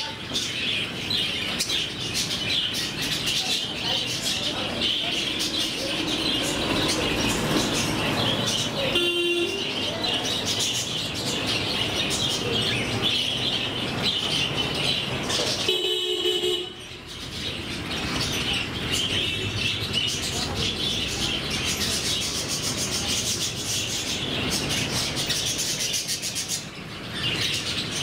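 A flock of budgerigars chattering and chirping continuously. A vehicle horn gives two short toots, about nine seconds and sixteen seconds in.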